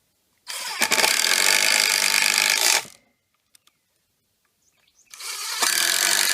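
Power driver running twice, about 2.5 s each time, driving screws through a steel flange's oblong holes into a redwood post; each run starts a little softer and then rises as the screw bites into the wood.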